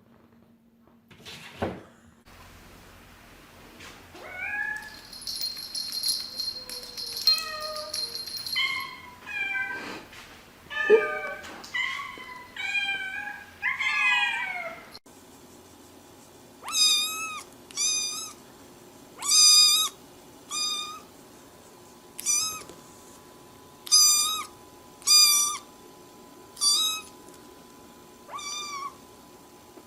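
Cats meowing over and over. First comes a run of drawn-out meows that slide up and down in pitch. After a sudden cut, a series of short, high meows follows, about one every second or so.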